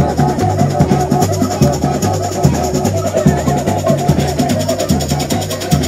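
Samba percussion music: surdo bass drums alternate between a low and a higher note in a steady beat under busier drum and percussion parts.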